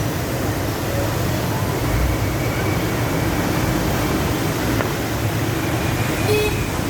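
Floodwater rushing steadily through a street, a continuous low rushing noise.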